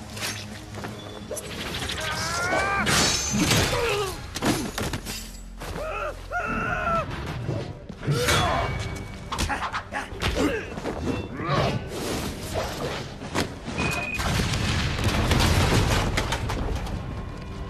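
Animated fight sound effects: a rapid run of blows, thuds and crashes, with short shouts from the fighters, over a film score.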